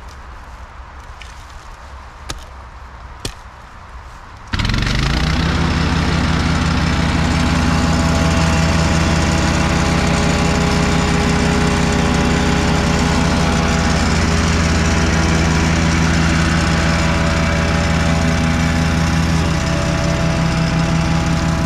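Petrol-engined Zipper plate compactor comes in suddenly about four and a half seconds in and then runs steadily, vibrating over loose soil to compact it. Before it, two faint knocks.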